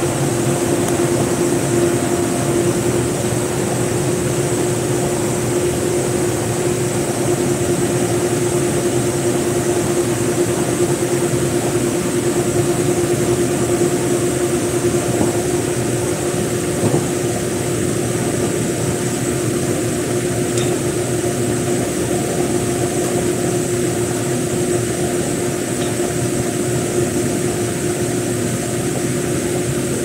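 Boiler-room machinery running steadily: a loud, even hum with a constant mid-pitched tone and a thin high whine above it.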